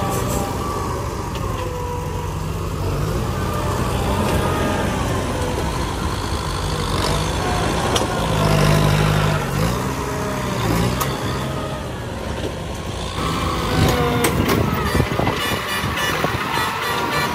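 Diesel dump truck engine running, with its pitch rising and falling, as the tipper bed is raised and the load of soil and rocks slides out. About thirteen seconds in, the sound changes to a farm tractor's diesel engine running.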